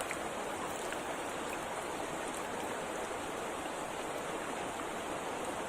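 Steady rush of running water, an even hiss with no changes.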